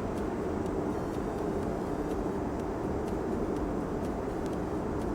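Woodworking machinery running steadily: a constant hum and rumble with faint clicks.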